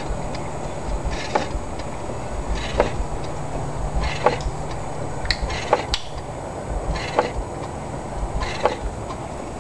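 1903 J.I. Case 9 hp steam traction engine idling slowly on low steam pressure, about 5 psi. A regular beat comes about every second and a half, with lighter clicks in between, over a steady low rumble.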